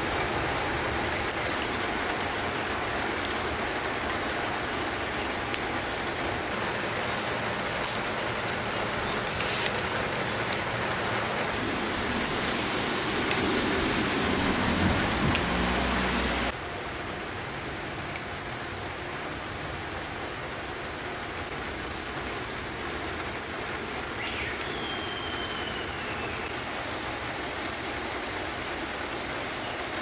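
Steady rain falling, with a wood fire crackling and now and then a sharp pop. The whole sound drops quieter about halfway through.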